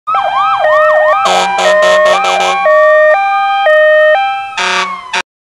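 Emergency vehicle sirens sounding together: quick rising yelps, a two-tone hi-lo wail and a long slowly rising tone. Harsh blasts come in the middle and again near the end, and it all cuts off suddenly about five seconds in.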